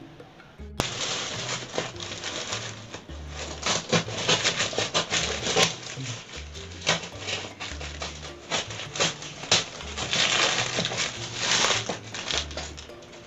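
Black plastic bag wrapping crinkling and crackling as hands pull it off a cardboard box, starting sharply about a second in and going on in dense, irregular handfuls. Background music with a repeating bass pattern runs underneath.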